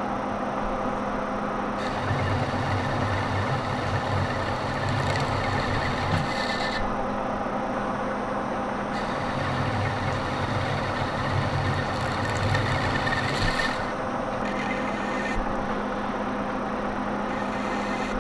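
Monarch engine lathe running steadily while its tool turns a 4140 steel washer blank; a deeper cutting sound comes in for two stretches of about four seconds each, about two seconds in and again at about nine seconds.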